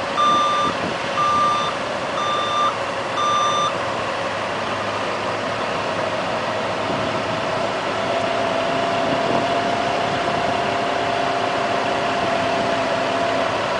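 A heavy vehicle's backup alarm beeps about once a second, five times, then stops. Under it a heavy engine runs steadily throughout, settling into a steady hum from about eight seconds in.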